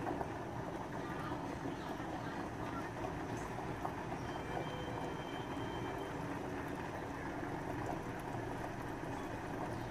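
Oil and sugar sizzling steadily in a pot as the sugar caramelizes.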